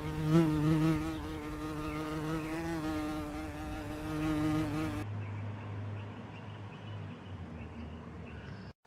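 A steady, insect-like buzz with a slightly wavering pitch for about five seconds. It cuts off abruptly and is followed by a fainter, lower hum.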